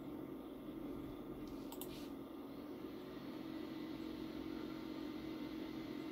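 Steady low room hum of running equipment, with a couple of light clicks about two seconds in.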